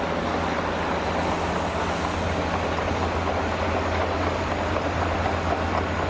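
Tipper dump truck's diesel engine running steadily as the raised body tips out a load of sand: a low even hum with a noisy wash over it.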